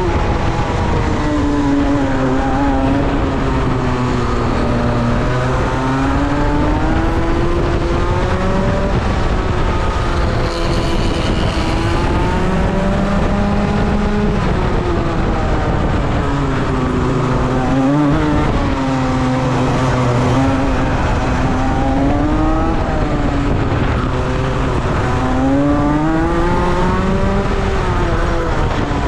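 Pre-evo Rotax Max kart engine, a 125 cc two-stroke single, running unrestricted at racing pace, heard close from the driver's seat. Its pitch climbs on each straight and drops under braking into the corners, rising and falling every few seconds.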